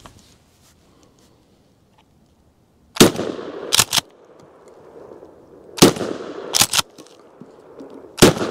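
Three shots from a Mossberg 590 .410-bore pump-action shotgun firing triple-aught buckshot, spaced about three seconds apart and starting about three seconds in. The first two shots are each followed by two quick clacks as the pump is racked back and forward. A rushing noise lingers after each shot.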